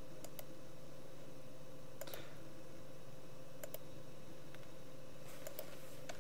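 A few faint computer-mouse clicks, some in quick pairs, spread over a steady low hum of computer and room noise.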